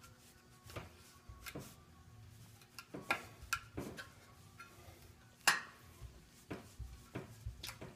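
Hand screwdriver turning a small screw into a sheet-metal piece clamped in a bench vise: faint, scattered metallic clicks and taps, the loudest about five and a half seconds in. The screw's head is already partly stripped.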